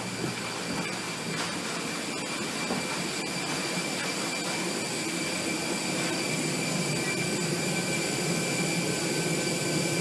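Airbus A320 jet engines heard from inside the cabin: a steady rushing noise with a high, steady whine, growing slowly louder.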